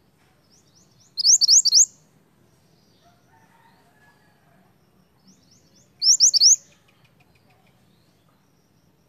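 A mantenan (minivet) sings two loud phrases, about a second in and again about six seconds in. Each phrase is a quick run of three or four sharp, rising whistled notes, led in by a few softer short notes, with faint chirps between the phrases.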